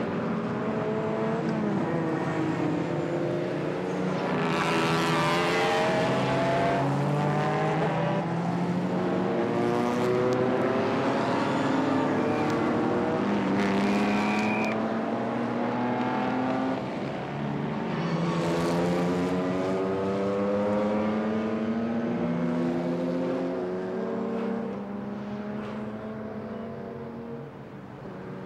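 Race car engines accelerating through the gears, several at once: pitch climbs, drops at each upshift and climbs again. Two cars pass close, about five seconds in and again near nineteen seconds, and the sound fades near the end.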